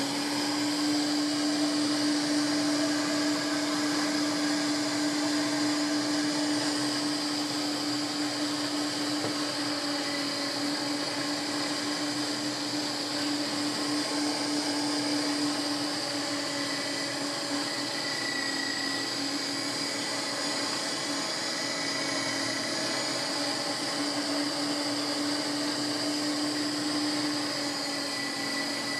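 Electric motor of a SilverCrest Minicer SFW 350 D3 350 W meat grinder, fitted with its tomato strainer attachment, starting up and running steadily with a constant hum and a high whine while pressing tomatoes into sauce.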